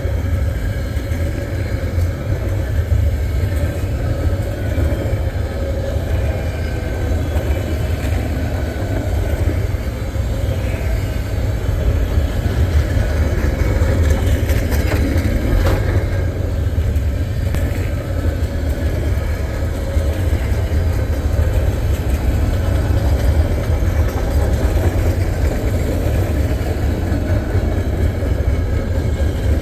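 Freight train of intermodal cars rolling past, a steady low rumble of steel wheels on rail with a short, sharper noise about halfway through.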